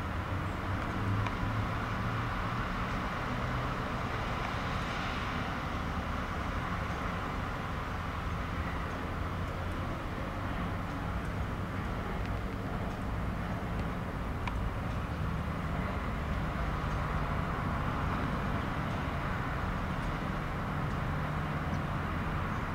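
Steady low rumble and hum of a distant cargo ship's diesel engine running under way, over constant outdoor background noise.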